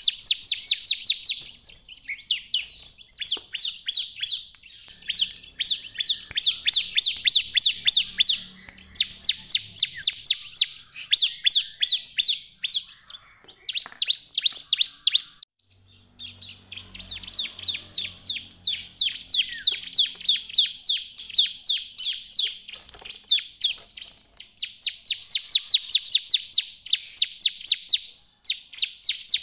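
Ciblek (bar-winged prinia) singing hard: rapid runs of sharp, high chirps, several a second, in bursts of one to three seconds with short breaks and one longer pause about halfway through.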